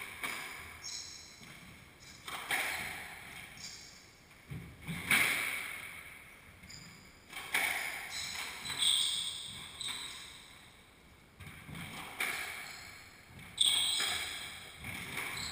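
Squash rally: the ball cracks off racquets and the court walls every second or two, each hit ringing in the enclosed court, with short high squeaks from sneakers on the hardwood floor between shots.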